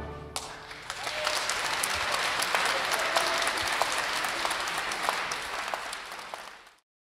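The orchestra's final chord dies away, then a concert audience applauds. The clapping builds over about a second, holds steady, then fades and cuts off near the end.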